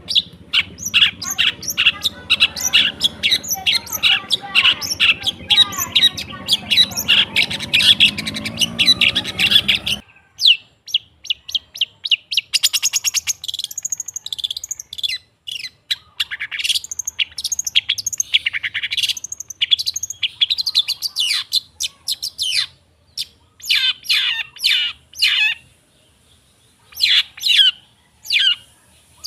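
Long-tailed shrike song used as a lure track. For about ten seconds there is a dense, fast run of chirps over a background hum. It then cuts abruptly to a cleaner recording of shorter chirping phrases with pauses between them.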